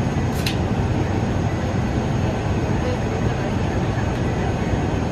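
Steady low hum of a Boeing 757-200's cabin air conditioning with the airliner parked at the gate, with a short click about half a second in.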